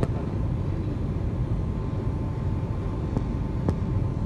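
Steady low road and engine rumble heard from inside a moving car, with a faint steady whine above it and two light clicks about three and a half seconds in.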